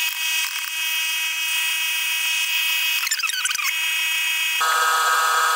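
KitchenAid Artisan stand mixer's motor running with a steady whine as it beats egg white bread batter after the dry ingredients have gone in.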